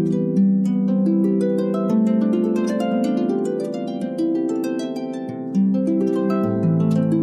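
Harp being played: a continuous flow of plucked notes ringing into one another over sustained low bass notes.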